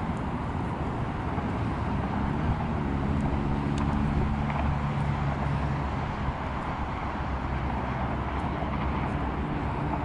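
Steady traffic rumble with a motor vehicle's engine hum that swells a couple of seconds in and fades after about five seconds.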